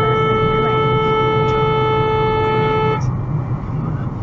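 Car horn held down in one long, steady blast that cuts off suddenly about three seconds in, sounded as a warning at a driver cutting into the lane. Road and engine noise of the moving car runs underneath.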